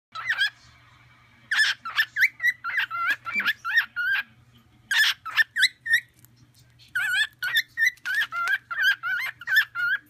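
Grey cockatiel singing: groups of quick warbling whistles that wobble up and down in pitch, with short breaks about a second and a half in and again near six seconds. A faint steady low hum runs underneath.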